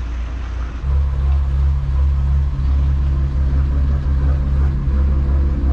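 Dutch barge's inboard engine running steadily at low speed, a deep even hum that steps up louder a little under a second in.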